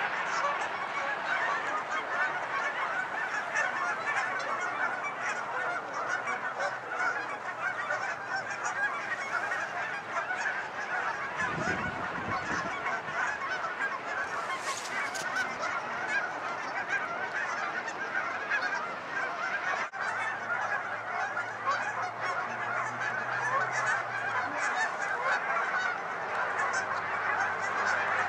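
A large flock of geese honking continuously, with many calls overlapping into a dense, unbroken chorus. A short low thump comes about twelve seconds in.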